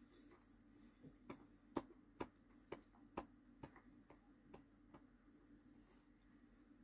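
Faint, regular ticking, about two ticks a second, over a low steady hum in an otherwise near-silent room.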